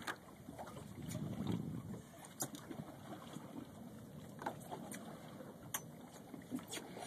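Steady wind and water noise around a small fishing boat at sea, with a few scattered light clicks.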